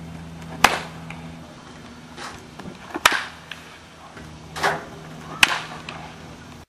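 A baseball bat hitting pitched balls in batting practice: three sharp cracks, about two and a half seconds apart.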